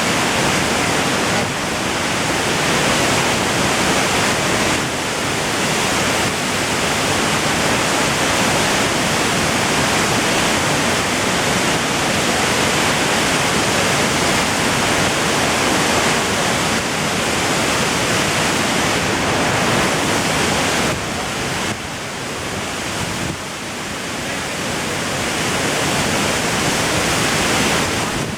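Waterfall with water rushing steadily. It dips slightly in loudness about three-quarters of the way through.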